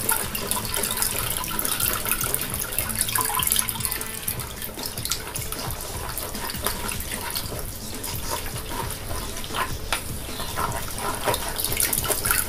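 Fermented grape wine trickling and splashing through a plastic sieve into a bowl, with small wet clicks as a wooden spoon stirs the mashed grapes in the sieve.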